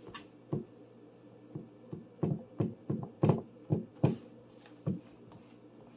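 Hands pressing and patting dough into a glass pie dish: a run of short, irregular thumps and knocks, thickest and loudest in the middle of the stretch.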